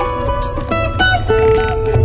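Background music: a plucked guitar melody over a steady bass line and a regular beat.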